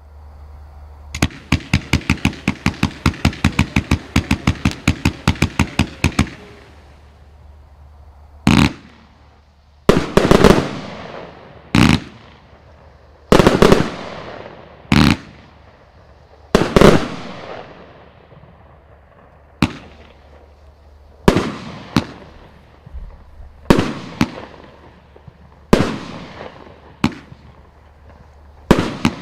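Riakeo 'Cyttorak' 142-shot firework compound cake firing. A fast volley of shots runs for about five seconds, then after a short gap come separate louder reports every one to two seconds, each followed by a fading burst tail.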